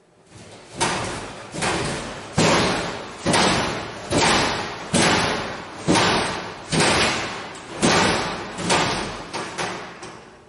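About a dozen loud bangs, a little under one a second, each ringing out and dying away in a long echo down a hard-floored corridor, with no visible source. They are the unexplained night-time banging that the school's CCTV clip is billed as a poltergeist event.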